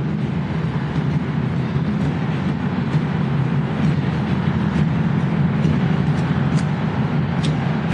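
Large crowd of protesters shouting together inside a stone capitol rotunda, a loud steady roar of many voices, with a few sharp hits near the end.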